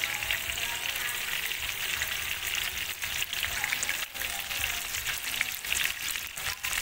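Chicken wings frying in hot oil in a metal wok, with a steady crackling sizzle.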